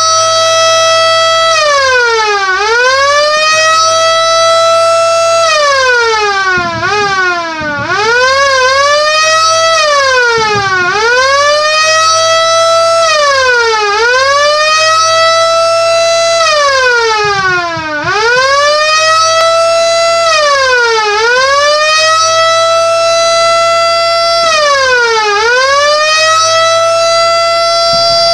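Battery-powered air raid siren sounding an attack tone: a wail that rises quickly to a steady pitch, holds, then slides back down, repeated about every four seconds, with a couple of short quick blips in between.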